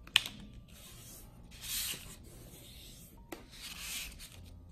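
A sheet of paper being folded and creased by hand: fingers rub and slide along the fold in several swishes, the longest about two seconds in and another near the end, after a sharp tap just at the start.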